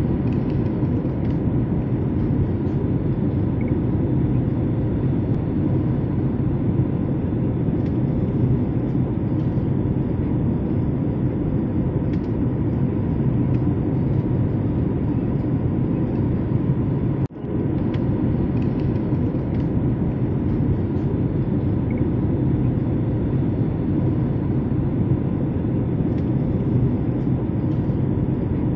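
Jet airliner cabin noise in flight beside a wing-mounted turbofan engine: a steady low rumble with a faint steady hum on top, broken once by a brief dropout about two-thirds of the way through.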